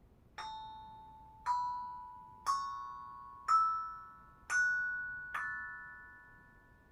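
Six struck bell-like chime tones climbing step by step in pitch, about one a second, each ringing on and fading away.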